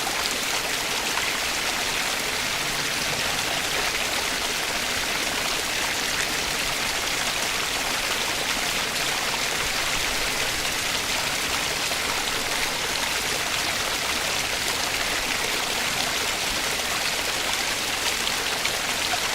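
Stream water flowing and splashing over rocks, a steady, unbroken hiss.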